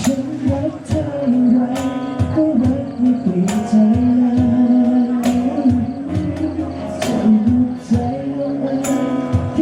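Live band playing the instrumental close of a slow pop ballad: sustained chords with a melody line and occasional drum and cymbal hits.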